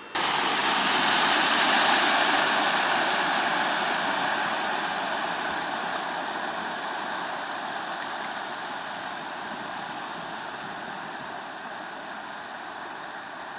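A car driving through deep floodwater, its tyres throwing up a rushing spray of water. The rush is loudest about two seconds in and fades slowly as the car moves away.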